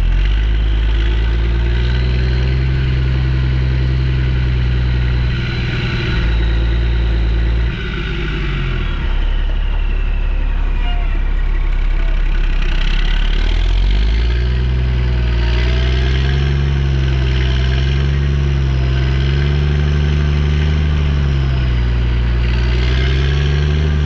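Diesel engine of a tracked excavator working under hydraulic load. The engine note dips about eight seconds in, then rises and falls repeatedly as the machine digs and swings, with a faint high hydraulic whine on top.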